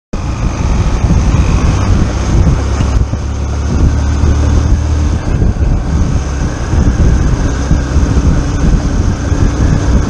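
Wind buffeting the microphone of a camera on a moving Yamaha motorcycle, with the bike's engine and tyre rumble running steadily underneath.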